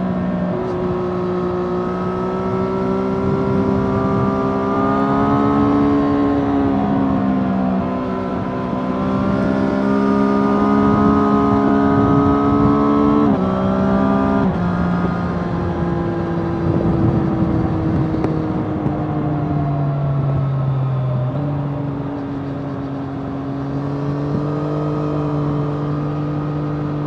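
Triumph Street Triple RS's 765 cc three-cylinder engine running through its stock exhaust while riding at speed. The engine note holds steady in stretches and steps up and down in pitch a few times, with wind rush over the helmet-mounted microphone.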